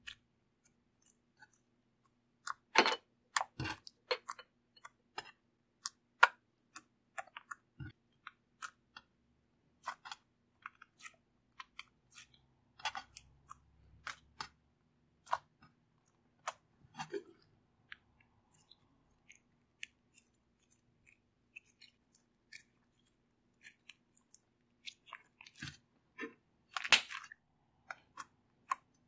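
Slime being squished and kneaded by hand, giving scattered sticky clicks and crackles, with louder clusters of pops about three seconds in and near the end.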